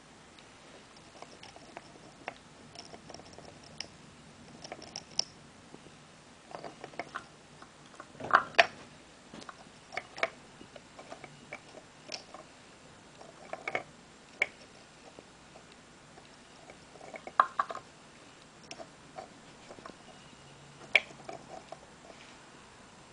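Dwarf hamster scrabbling and gnawing on small wooden logs: scattered soft clicks and scratches of claws and teeth, with a handful of louder clusters spread through.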